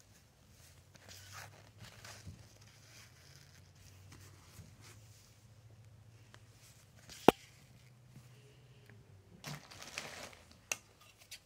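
Soft rustling and handling noises with a faint low hum underneath, broken by one sharp click about seven seconds in and a smaller click near the end.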